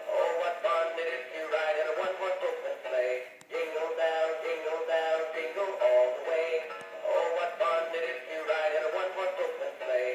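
Animated singing Christmas tree toy singing a Christmas song through its small speaker, thin and without bass, with a short break about three and a half seconds in.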